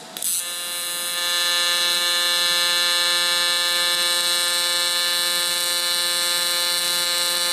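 AC TIG welding arc on aluminum from a Lincoln Electric Aspect 230, running at a 175 Hz AC frequency with the balance at 70 and auto balance off. It strikes with a sharp crack a fraction of a second in, builds over about the first second, then holds a steady buzz.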